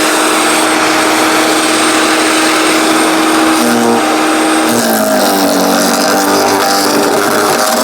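15-amp electric wood chipper shredder running with a steady motor whine. About four seconds in, the pitch drops and wavers: the motor slowing under load as branches are fed in and chopped.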